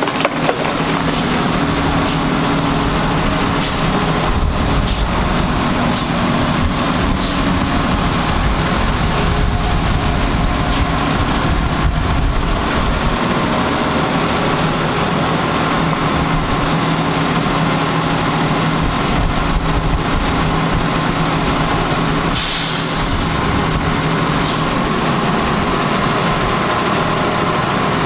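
Heavy armored truck's diesel engine running as the truck pulls out and moves slowly, with a few sharp cracks in the first several seconds. About 22 seconds in there is a short hiss of air brakes.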